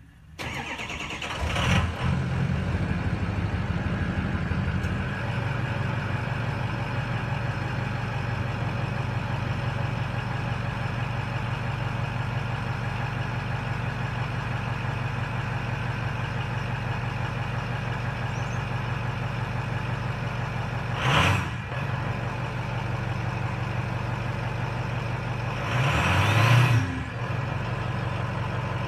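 Stock 6.0 Powerstroke V8 turbo-diesel of a 2005 Ford F350 cranking and starting about half a second in, running a little higher for the first few seconds, then idling steadily. It is revved briefly twice: a short blip about 21 seconds in and a longer rev about 26 seconds in.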